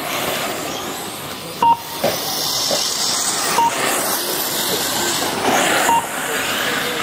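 1:8 scale electric off-road RC buggies racing, their motors whining and sweeping up and down in pitch. Three short high beeps from the lap-timing system come about two, three and a half and six seconds in.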